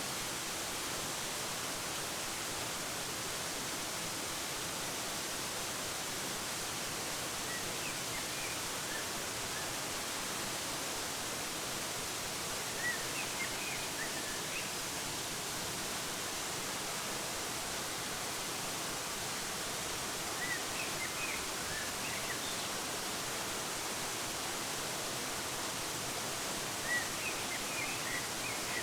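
Steady rushing of a waterfall, with a few short bursts of small bird chirps scattered over it.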